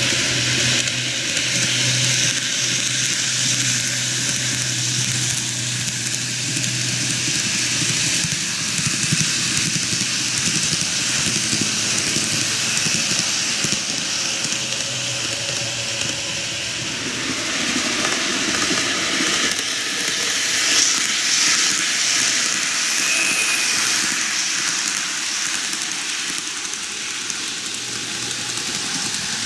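N-gauge model trains, JR 485 series 3000 and E653 series 1100 models, running on superelevated track: a steady hiss of wheels on the rails, with a low hum during the first several seconds.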